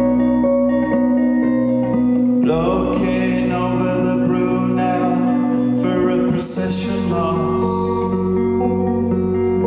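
Acoustic guitar playing a slow instrumental song intro live over a sustained low note. The chords change about two and a half seconds in and again about six and a half seconds in.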